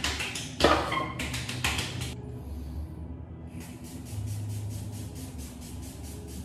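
Skin serum misted onto the face from a pump spray bottle: a few hissing sprays in the first two seconds, then a longer run of quick, evenly spaced sprays from about three and a half seconds in.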